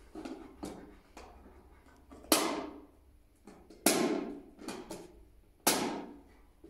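A German shepherd nosing and pushing at a small wooden box on a wooden plank, knocking and rattling it. Light wooden clicks, with three loud clacks about two and a half, four and six seconds in.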